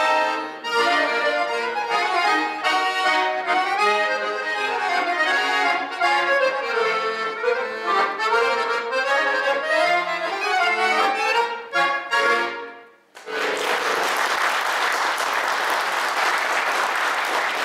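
Three accordions playing a quick, lively tune together, ending on a final chord about twelve seconds in. An audience then applauds steadily for the last few seconds.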